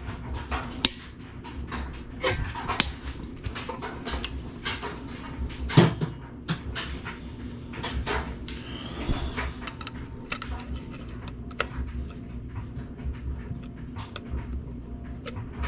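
Irregular metal clicks and knocks of a ratchet and wrench working a connecting-rod bolt, then of a dial stretch gauge being set on the bolt end. There is one louder knock about six seconds in.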